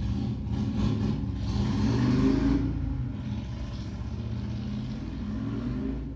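A motor vehicle's engine running steadily, growing louder for a moment about two seconds in.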